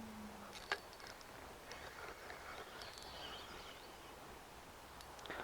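Faint outdoor creek-side ambience: a low steady buzz fades out within the first second, a single sharp click sounds a little after, then faint scattered high chirps.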